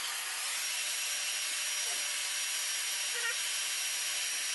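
Hand-held hair dryer blowing steadily, heat-shrinking the cellophane wrap on a gift basket, with a faint high motor whine over the rush of air.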